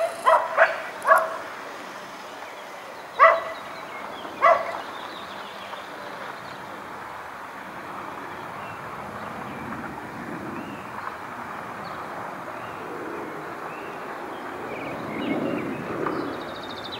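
A dog barks several times in the first five seconds. After that, the Boeing C-17 Globemaster III's four turbofan engines make a steady rushing jet noise as it flies in on approach, growing louder near the end.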